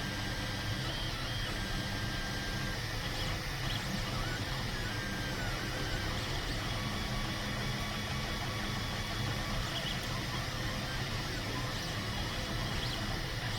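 3D printer's stepper motors whining as the print head traces the skirt, the pitch sliding up and down as the head speeds up and slows at each turn, over a steady low hum.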